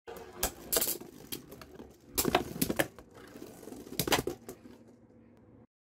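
Plastic Beyblade tops spinning in a plastic stadium, a steady whir under clusters of sharp clattering clicks as plastic strikes plastic. The sound cuts off suddenly near the end.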